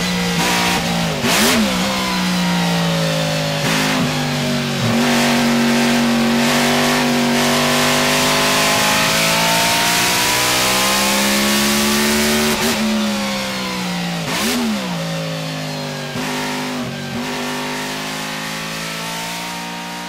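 The 1953 BRM V16 Mk2's supercharged 1.5-litre V16 racing engine, being driven hard. Its pitch rises and falls with the revs, with a few sudden dips and recoveries. It grows gradually quieter over the last several seconds.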